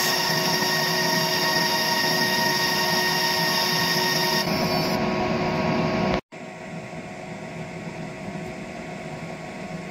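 ComMarker B4 fiber laser marking a dithered photo into a black card: a steady mechanical buzz with several held tones. About six seconds in it cuts off abruptly and drops to a quieter steady hum with the same tones.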